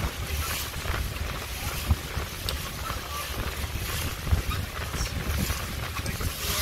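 Wind buffeting the microphone aboard a moving boat, with irregular gusty thumps over the steady low rumble of the boat's motor and the hiss of water rushing past the hull.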